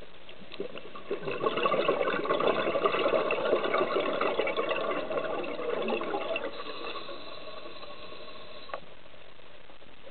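Scuba diver's exhaled bubbles from the regulator, a dense bubbling that starts about a second in and fades out over about six seconds, over a steady underwater hiss. A single faint click near the end.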